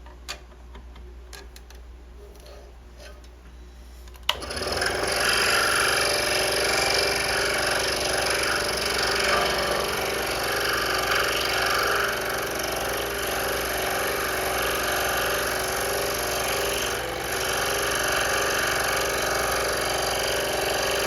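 A few light clicks, then about four seconds in a scroll saw switches on and runs steadily, its fine reciprocating blade cutting through a scrap of cherry and black walnut.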